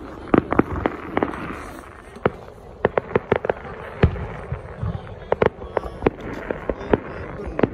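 Aerial fireworks going off: an uneven series of sharp bangs and crackles from bursting shells, several close together in some moments.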